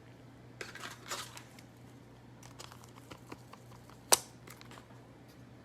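Foil trading-card pack wrapper crinkling and tearing, with small ticks of cards being handled and one sharp click about four seconds in.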